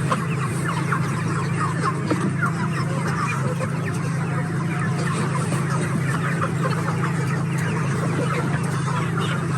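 A flock of chickens clucking and calling over one another, many short calls overlapping, over a steady low hum.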